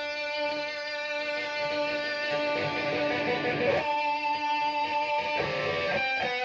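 Electric guitar played through the Boulevard Effects 3-in-1 pedal's Tube Screamer-style preamp turned full up, holding long overdriven notes that sustain for seconds and change pitch a few times.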